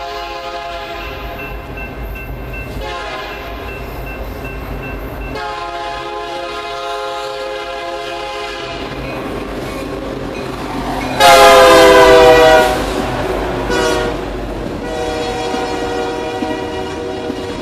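Diesel freight locomotive horn sounding a series of long chord blasts as the train approaches a grade crossing. The blast is loudest, and falls slightly in pitch, as the locomotive passes about eleven seconds in. After that come the rumble and wheel clatter of a crude oil tank car train rolling by.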